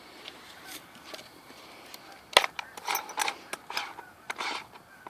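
Metal meat grinder parts being handled: a sharp knock about halfway through, then a few short clinks and clatters as the pieces are moved and set down.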